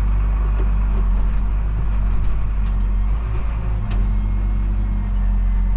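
Tractor engine idling steadily, a constant low hum, with a few faint metallic clicks about four seconds in.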